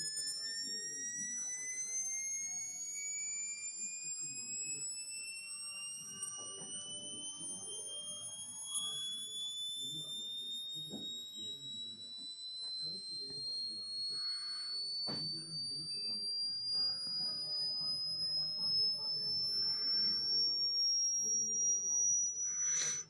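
Sine-wave frequency sweep from a computer's headphone jack, sent through a homemade FM transmitter and received on a phone radio tuned to 96 MHz, playing through the phone's speaker. It is a single clear whistle-like tone rising steadily in pitch with fainter overtones above it, and it cuts off suddenly at the end.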